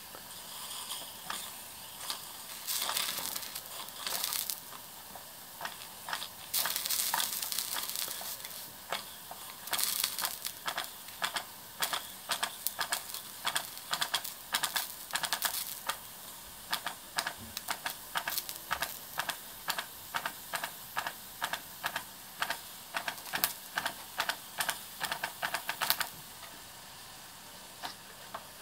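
Mamod ME3 marine steam engine in a model boat running: bursts of steam hiss in the first several seconds, then a long run of sharp exhaust chuffs, about two to three a second.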